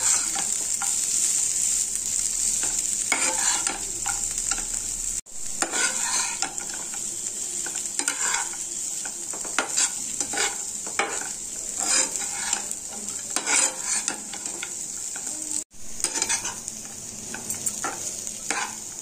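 A spatula stirs and scrapes poha (flattened rice) with fried potatoes, peas and peanuts around an oiled frying pan, in repeated strokes over a steady frying sizzle on a low flame. The sound cuts out for an instant twice.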